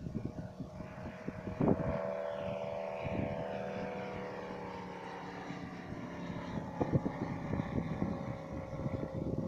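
Stearman biplane's engine running as the plane flies past, its pitch slowly falling as it goes by. Wind buffets the microphone at the start and end.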